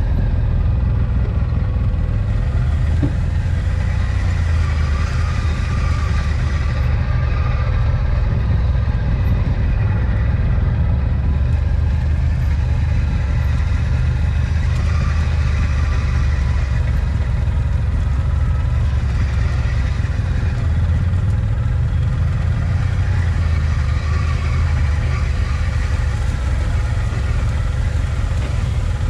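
Polaris RZR side-by-side's engine running steadily at low speed as it crawls along a rough dirt trail, a deep, even rumble heard from the driver's seat.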